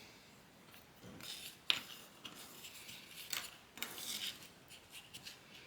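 Small craft pieces, beads and a plastic straw, being handled: scattered light clicks and rustling, the sharpest click a little under two seconds in.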